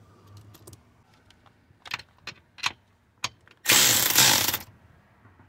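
Hand socket ratchet on a long extension clicking as it turns the steering column's 14 mm mounting nuts. A few single clicks come first, then about a second of fast, loud ratcheting.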